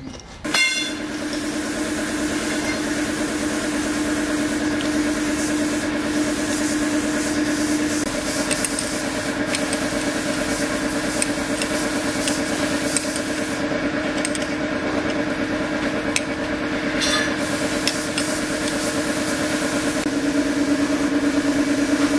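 A small motorcycle engine comes in suddenly about half a second in and then idles steadily.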